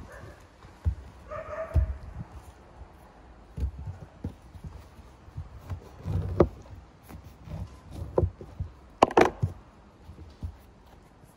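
A kitchen knife cuts through a crusty bread loaf in a series of short, sharp crackling strokes, the loudest cluster near the end. A brief high-pitched animal call sounds once, about a second and a half in.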